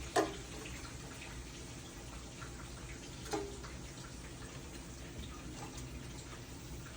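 Seafood being eaten by hand: scattered small clicks and taps of shells, with two louder wet mouth sounds about three seconds apart.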